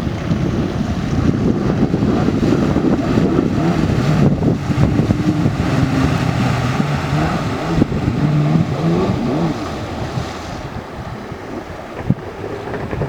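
Personal watercraft (jet ski) engine running on the water, its pitch rising and falling, with heavy wind noise on the microphone. The sound drops off and turns duller about ten seconds in.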